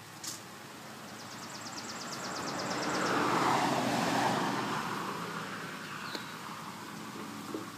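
A vehicle passing by on a road, swelling to its loudest about midway and then fading away.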